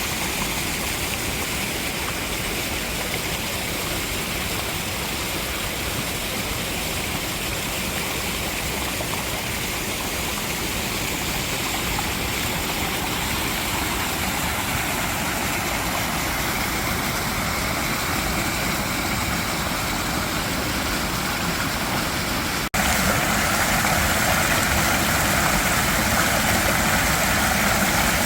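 Mountain valley stream rushing steadily over rocks. About 23 seconds in the sound breaks off for an instant, then goes on a little louder and brighter.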